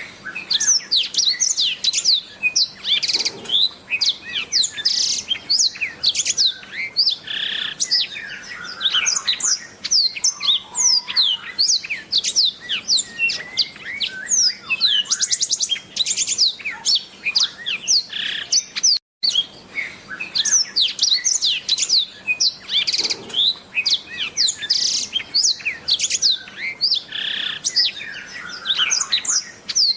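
Black-throated canary (blackthroat) singing a long, fast twittering song of high, quick downward-sweeping notes, broken once by a brief silence about nineteen seconds in.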